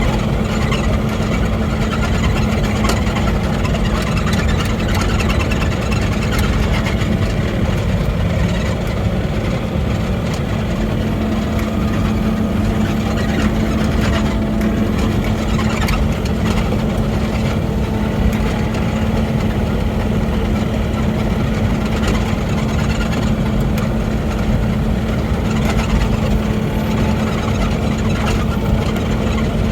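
Mini excavator's engine running steadily with a constant hum, with scattered light clicks and knocks over it.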